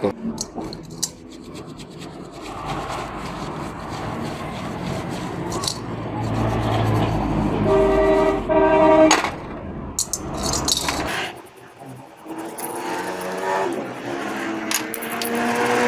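Brush scrubbing the small metal clutch-adjuster parts of a Honda CD 70 in a dish of petrol: a steady rubbing and scraping with light clinks. Two short tones sound a little past the middle, and a motor vehicle's engine rises in the background over the last few seconds.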